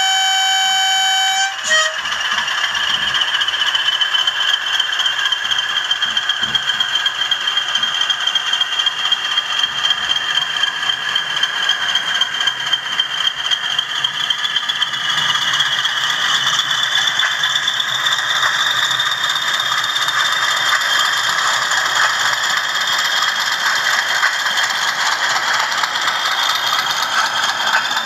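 Two Bachmann Class 20 model diesel locomotives with South West Digital ESU sound decoders. A horn sounds and cuts off about a second and a half in. The recorded diesel engine sound then runs on as the locos pull away, with a high whine that rises in pitch about halfway through and the rattle of the model mechanisms.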